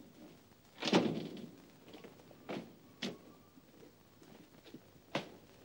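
An apartment door and its lock being worked: scattered knocks and clicks, the loudest a deep thud about a second in, with sharper clicks and knocks after it.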